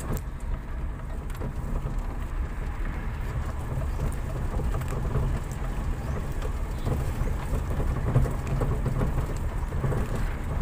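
Car cabin noise while driving on a rough dirt road: a steady low rumble of engine and tyres, with uneven swells and scattered light rattles and knocks as the car bumps along.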